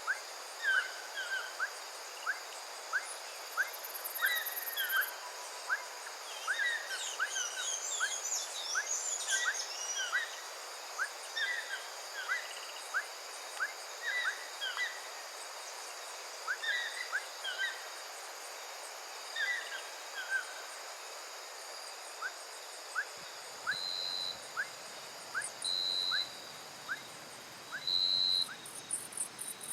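Cloud-forest soundscape: birds give short, sharp chirping calls over and over against a steady high-pitched insect hum. Near the end, shorter repeated high calls and a fast pulsing insect trill come in.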